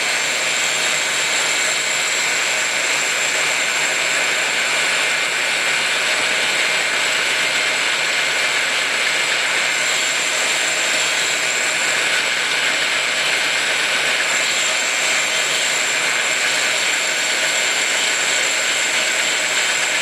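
Machine-driven carbide-insert valve seat cutter spinning and milling the valve seat pocket in a Willys F-head's cast-iron block: a steady machine hum and whine with a constant cutting hiss.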